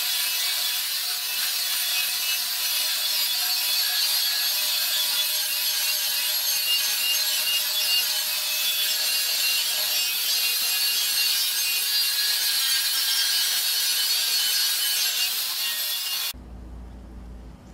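Handheld angle grinder running with its abrasive disc worked along the edge of a metal rack rail: a steady high-pitched grinding hiss over a whining motor tone. The sound cuts off suddenly about a second and a half before the end.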